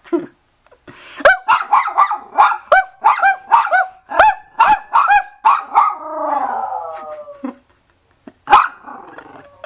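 Small Yorkshire terrier-type dog barking: a quick run of high barks, about three a second, then a drawn-out howl that falls in pitch, and one more bark near the end.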